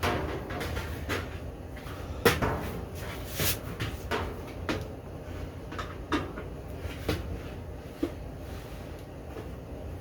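Scattered knocks and clicks of things being handled, about a dozen spread irregularly, the loudest a little over two seconds in, over a low steady background hum.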